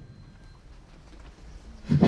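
A deep drum stroke dies away, then after a quiet gap a second heavy, booming drum stroke lands near the end.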